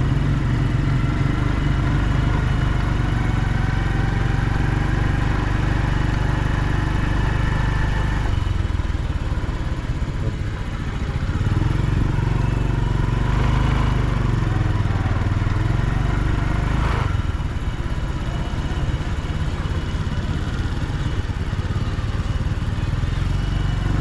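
Small commuter motorcycle's engine running as it is ridden, heard from the handlebars. The engine note climbs steadily over the first eight seconds as the bike accelerates, then drops off suddenly and eases, with the engine pulling again later on.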